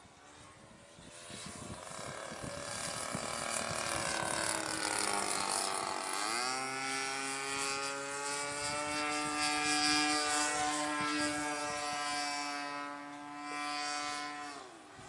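Evolution 20cc GX2 two-stroke gas engine on a Hangar 9 Ultra Stick model plane in flight, turning a 15x6 propeller. The engine note swells and sinks in pitch, then about six seconds in jumps sharply higher and holds a steady high drone. It falls away just before the end.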